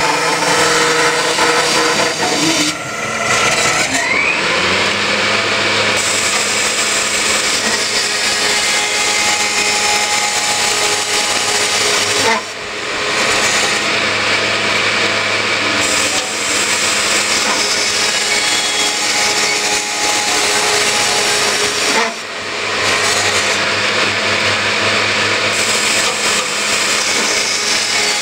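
Scotchman CPO 315 HFA-CNC automatic circular cold saw with a 12.5-inch, 160-tooth blade at about 150 RPM, cutting through 2-inch mild steel tubing: a loud, steady cutting noise over the hum of the running saw. It dips briefly about every ten seconds, near 3, 12 and 22 seconds in, as the saw works through a run of cuts.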